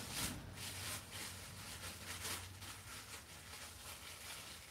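Faint rustling and handling noises that fade after about two seconds, over a low steady hum.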